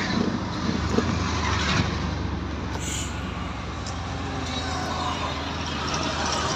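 Steady engine drone and road noise of a moving motor vehicle, heard from inside the cabin.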